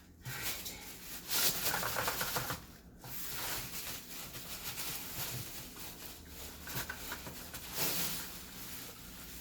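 Plastic trash bag rustling and crinkling as a 5-gallon bucket of soil is tipped out into it, with scraping and shuffling; loudest from about one and a half to two and a half seconds in, with another surge near the end.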